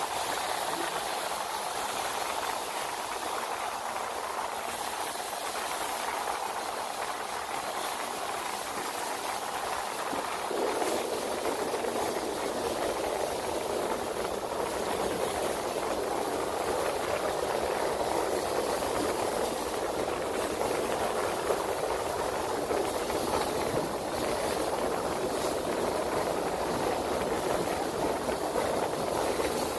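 Shark vacuum cleaner running steadily while vacuuming carpet, a continuous motor and suction hiss whose tone fills out lower about ten seconds in.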